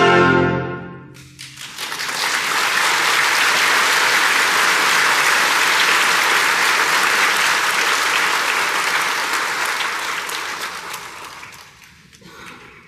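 A wind band's last held chord dies away about a second in, then the audience applauds steadily, the clapping thinning out and fading near the end.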